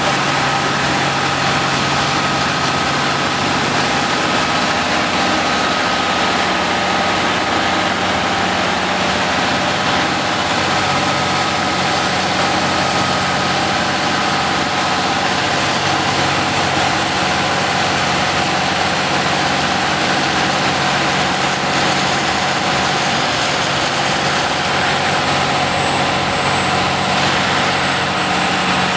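Rosenbauer Panther airport crash tender's engine running steadily while driving its fire pump, with the continuous hiss of its water turret jet.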